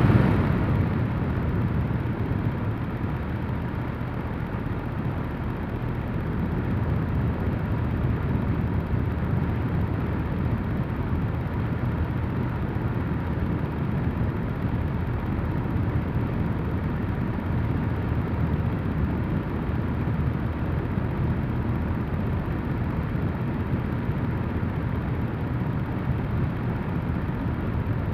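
AVIAIR R10 air circulator fan running steadily: a constant rush of moving air, heaviest in the low range, with a faint steady whine.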